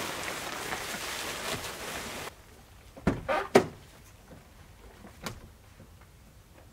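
A steady hiss of noise that cuts off abruptly about two seconds in, followed by two heavy clunks half a second apart and a lighter knock near the end.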